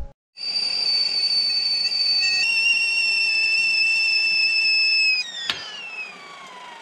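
Stainless-steel stovetop kettle whistling at the boil: a loud, steady high whistle over the hiss of steam. About five seconds in the whistle drops away, a sharp click follows, and the whistle then slides steadily down in pitch as it dies.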